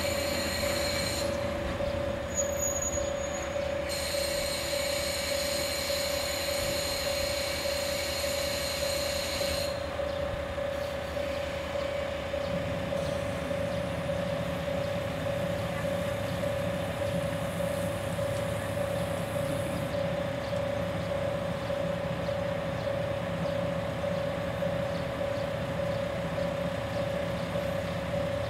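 JR KiHa 40 and KiHa 47 diesel railcars running steadily with a hum as the train comes to a stand at the platform. A high-pitched squeal sounds briefly at the start and again from about four to ten seconds in, and a deeper idling rumble comes in about halfway through.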